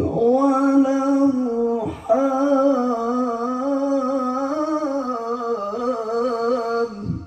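Male Quran reciter (qari) chanting in murattal/tajwid style: one long melismatic held tone with wavering ornaments, amplified through a microphone and PA sound system. There is a brief break for breath about two seconds in, and the voice cuts off just before the end.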